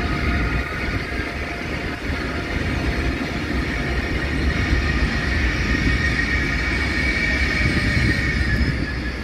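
A train running across a steel railway bridge: a steady low rumble with a high, several-toned whine from the wheels and motors that swells about six to eight seconds in.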